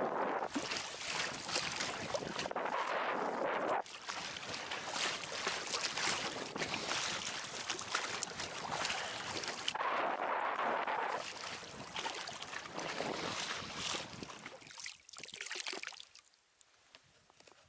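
Strong wind on the microphone and choppy water slapping and splashing against an inflatable boat, with gusty surges; the noise falls away sharply near the end.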